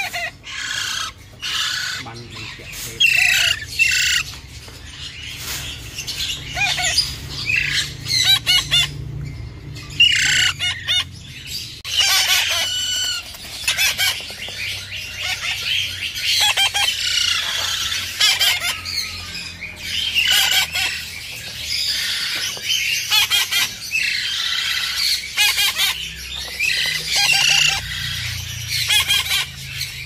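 Alexandrine parakeet chicks calling: many short, repeated harsh squawks and chirps, scattered at first and then almost continuous from about halfway, several birds overlapping.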